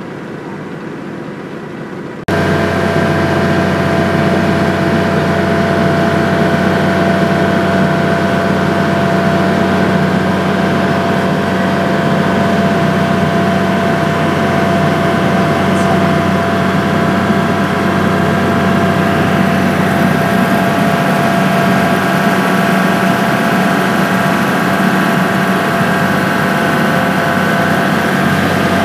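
Ferry boat's engine running steadily while under way, a low drone with several steady hums over a wash of noise, heard from on board. It gets suddenly louder about two seconds in.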